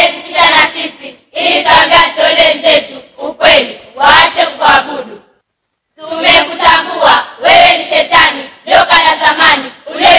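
A group of children's voices singing together in unison, in short phrases, with a brief pause about five seconds in.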